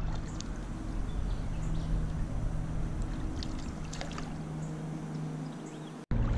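Creek water running, with a steady low hum beneath it and a few faint clicks.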